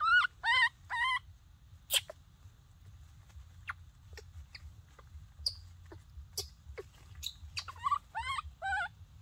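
Baby monkey crying: three short, wavering high cries in the first second, then four more near the end, with scattered small clicks between them as it crawls over dry leaves.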